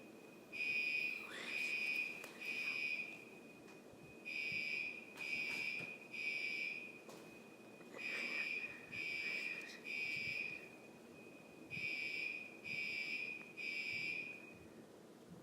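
Fire alarm beeping in groups of three high-pitched beeps with a pause after each group, the temporal-three pattern of a fire evacuation signal. Four groups sound, and the alarm stops shortly before the end.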